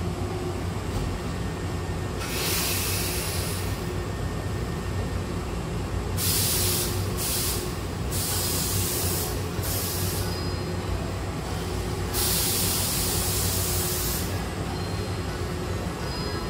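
Hankyu electric train standing at the platform, its equipment giving a steady low hum, broken by several bursts of compressed-air hissing: one of about two seconds, a run of shorter bursts, then another of about two seconds.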